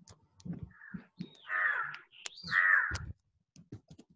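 Two harsh bird calls, each about half a second long and about a second apart.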